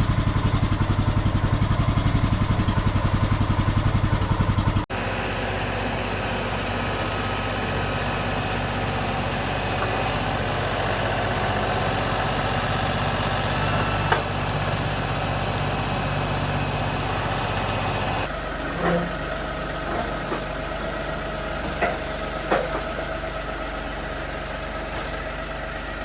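Woodland Mills HM126 sawmill's Kohler 14 hp engine idling close by just after a cold start, with a fast, even pulsing. About five seconds in the sound cuts abruptly to a quieter, steadier engine running. In the last third a few sharp knocks and clunks stand out over a lower engine hum.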